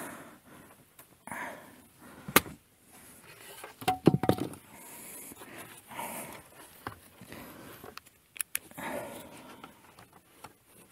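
Hard plastic car interior trim panel being handled and fitted to the back of a centre-console armrest: scattered plastic clicks and knocks with soft rustling, a sharp click a little after 2 s, the loudest clatter around 4 s and a pair of clicks near 8.5 s.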